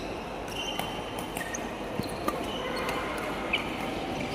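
Badminton play in a sports hall: a few sharp racket hits on the shuttlecock, about two seconds in, just after, and again near the end, with short squeaks of shoes on the court floor over a steady hall hum.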